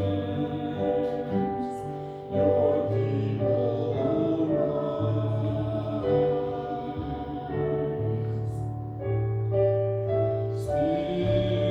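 Church music: voices singing a slow song with keyboard accompaniment, the notes held with a steady bass beneath.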